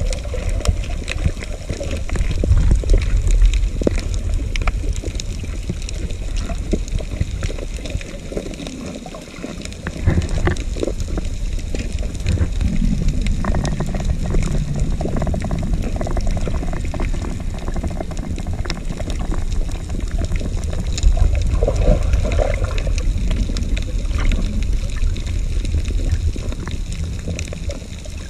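Water sloshing and gurgling around a camera held just under the sea surface while snorkelling, heard muffled and rumbling, with scattered faint clicks; it dips briefly about a third of the way in.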